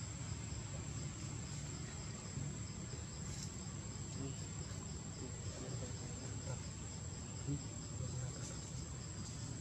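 Insects chirring steadily in the background: one high, even drone with a faster, fainter pulsing trill just below it, over a low rumble of ambient noise.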